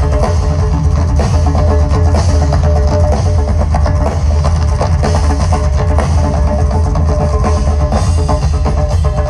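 A live band playing amplified through a PA, heard from the audience: a steady drum-kit beat over a heavy bass, with held notes on top.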